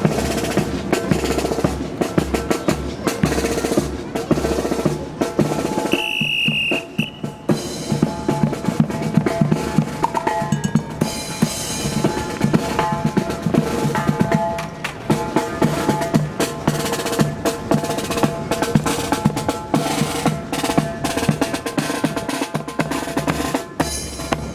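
Marching brass band playing, led by snare drum rolls and bass drum, with brass notes held over the drumming. A brief high tone sounds about six seconds in. Strong wind rumbles on the microphone.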